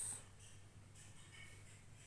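Faint scratching of a pen writing on paper, over a low steady hum. The hiss at the tail of a spoken word fades in the first moment.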